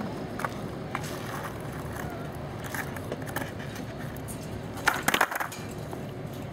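Canadian Pacific diesel locomotive rolling slowly past: a steady low rumble with scattered clanks, and a quick run of sharp knocks about five seconds in.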